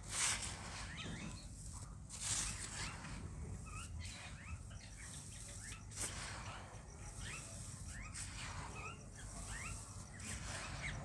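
Hands swishing through a heap of dry, powdery red dirt, loudest twice in the first few seconds, while small birds chirp over and over with short rising calls.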